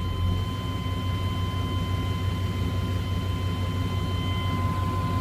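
Chevrolet 5.7 L 350 small-block TBI V8 idling steadily in reverse: a steady low hum with a thin, steady high-pitched whine over it and no clear knock.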